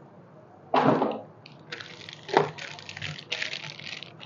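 Plastic packaging crinkling and rustling as a small wrapped item is handled and unwrapped, with a thump about a second in and a sharper knock about halfway through.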